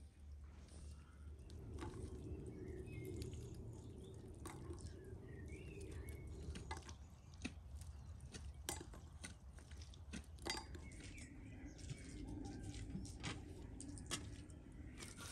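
Faint, scattered clinks and taps of metal cookware and utensils over a low steady background.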